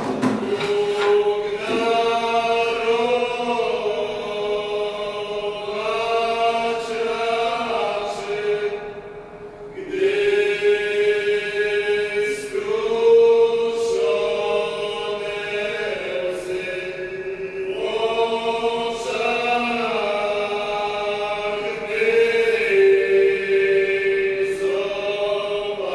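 Slow chant-like singing: long held notes over a steady drone pitch, in phrases of several seconds, with a brief dip about nine seconds in.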